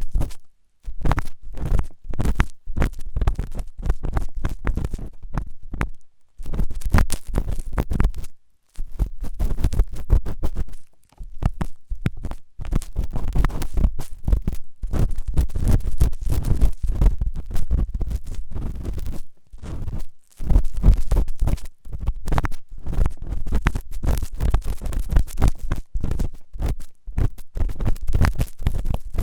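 Intense ASMR ear cleaning: an ear-cleaning tool scraping and rubbing hard against a microphone's ear in fast, dense scratchy strokes with a deep rumble, broken by a few brief pauses.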